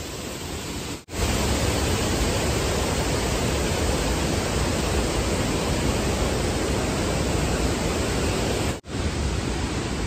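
Steady rushing of a monsoon-swollen waterfall, an even wash of noise that breaks off for a moment about a second in, comes back louder, and breaks off again briefly near the end.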